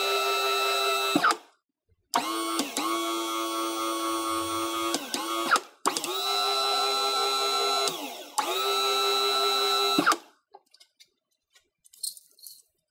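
Battery-powered DC hydraulic power unit, electric motor and pump whining as it pumps oil to extend and retract a hydraulic cylinder, switched on and off from a pendant control. It runs in four spells of a few seconds, each ending with the pitch falling as the motor spins down, followed by a few light clicks near the end.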